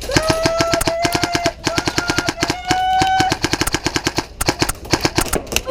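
Airsoft guns firing on full auto: a rapid stream of shots over a steady whine, in two long bursts with a short break about a second and a half in, then more scattered shots.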